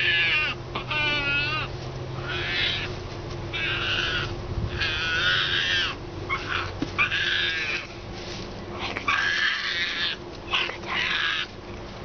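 Striped hyena cub making a string of short, high-pitched calls, some of them wavering, about nine in all, defensive sounds of a frightened cub.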